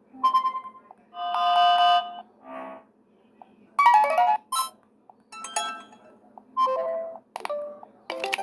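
Wileyfox Swift 2 Plus smartphone playing its preset alert tones through its small speaker: a string of short electronic chimes and melodic notes, each under a second long, with brief pauses between them.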